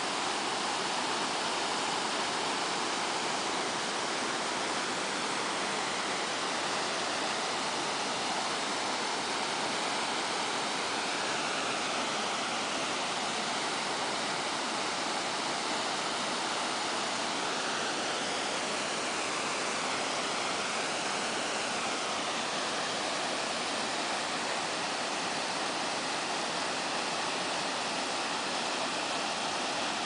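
A stepped river waterfall cascading over rock ledges: a steady, unbroken rush of white water.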